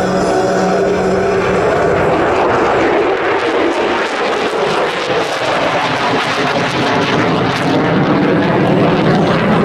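F-16 Fighting Falcon jet fighter flying a display, its jet engine a loud, steady rumble.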